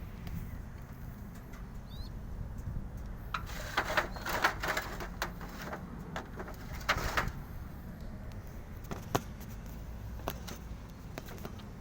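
Pigeons in a loft, with two bursts of clattering and fluttering about four and seven seconds in and a few single clicks after.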